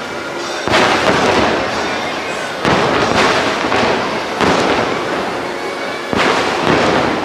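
Aerial fireworks bursting: four heavy booms about two seconds apart, each fading away before the next, with smaller pops in between.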